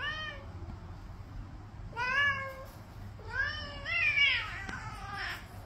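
A cat meowing several times in short calls that rise and fall in pitch: one at the start, one about two seconds in, and a quick run of calls near the end.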